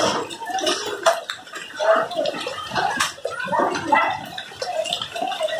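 Hailstorm: rain and runoff water gurgling and splashing unevenly, with scattered sharp taps of hailstones striking.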